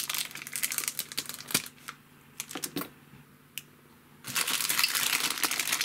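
Thin clear plastic bag crinkling and crackling as hands handle the plastic kit sprue inside it. It goes quieter for about two seconds in the middle with only a few clicks, then turns to steady, louder crinkling a little past four seconds in.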